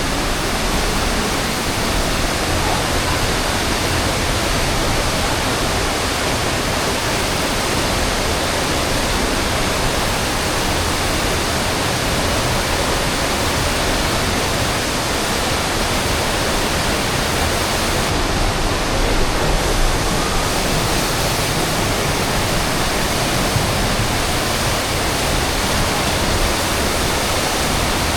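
The Aare River's water rushing through a narrow rock gorge: a steady, unbroken wash of water noise.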